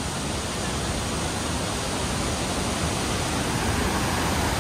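Steady roar of the 83-metre Montmorency Falls, a dense, even rush of falling water that grows slightly louder over the few seconds.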